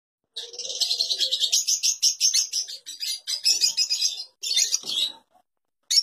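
A flock of lovebirds chattering: rapid, shrill, high-pitched chirps in dense overlapping runs, with brief gaps about three and four and a half seconds in, stopping about five seconds in, and one short chirp near the end.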